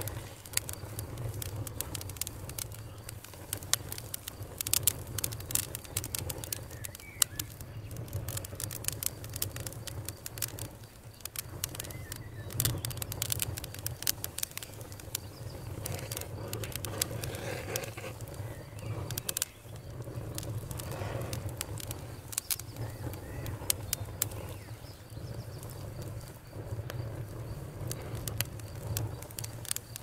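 Wood fire burning in a fireplace: logs crackling with frequent irregular sharp pops over a steady low rumble of the flames.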